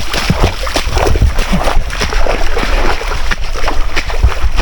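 Legs wading through deep, muddy floodwater on a trail, with irregular splashing and sloshing at each step.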